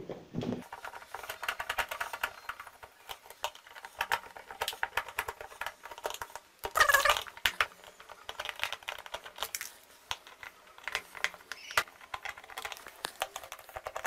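Screwdriver turning screws out of a Super Asia spin dryer's plastic housing, with irregular small clicks and ticks of the tool, the screws and the plastic, and a brief louder squeak about seven seconds in.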